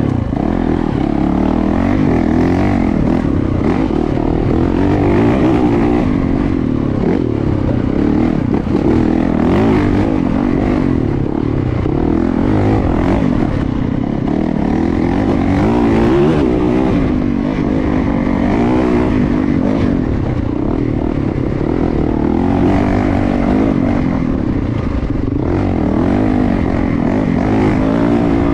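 Yamaha YZ450FX's 450 cc single-cylinder four-stroke engine running while the bike rides on, its revs rising and falling continuously under the throttle.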